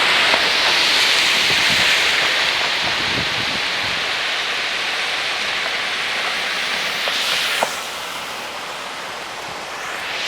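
Heavy downpour: a steady rushing hiss of rain and running water. A sharp click comes about three-quarters of the way through, after which the rush is a little quieter.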